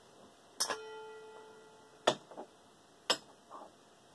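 Sharp knocks of loose metal parts from a dismantled desk fan being handled and set down. The first, about two-thirds of a second in, leaves a clear metallic ring that dies away over about a second and a half, and two more single knocks follow about a second apart.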